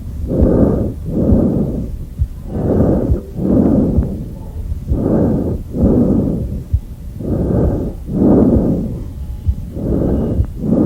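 Tracheal breath sound from a teaching recording: loud, harsh breathing noise, a normal breath sound heard over the trachea. Inspiration and expiration are of equal length with no pause between them, one full breath about every two and a half seconds.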